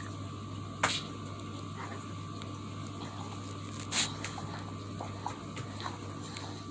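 Harbor Breeze ceiling fan running with a steady low hum, and two sharp clicks, about a second in and about four seconds in, the second the louder.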